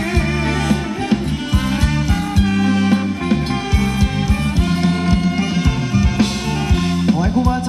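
Thai ramwong dance music from a live band: a steady, quick drum beat under held electric instrument tones.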